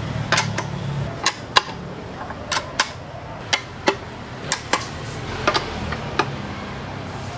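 Socket wrench on a long extension tightening the motorcycle fuel tank's 10 mm bolts: a string of sharp, irregular metal clicks and clinks, two or three a second.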